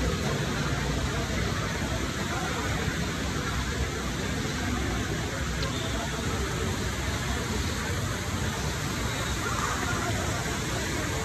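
Steady wash of background noise in a large, busy indoor hall, with faint, indistinct crowd voices mixed in.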